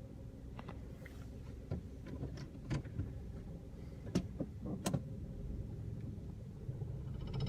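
A vehicle engine running with a steady low rumble, with a series of short sharp clicks and knocks over the first five seconds or so.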